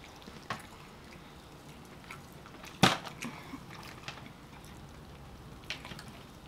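Two people tearing rotisserie chickens apart by hand and eating: quiet handling and eating noises with a few small clicks, and one sharp click or knock about three seconds in.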